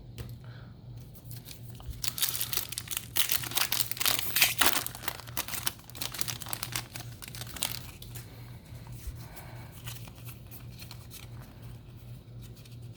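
A foil Yu-Gi-Oh! booster pack wrapper being torn open and crinkled, a dense crackling run that peaks in the middle and then settles into lighter rustling as the cards are handled.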